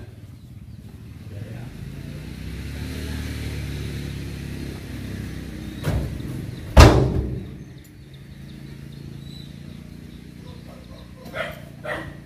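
A heavy oil palm fruit bunch lands with a loud deep thud in the steel bed of a dump truck, just after a lighter knock. Through the first half a vehicle engine runs steadily, and near the end come two lighter knocks as bunches are handled at the pile.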